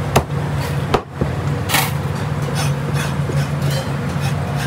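Food-stall kitchen clatter: a few sharp knocks in the first second or so and a short hiss about two seconds in, over a steady low hum.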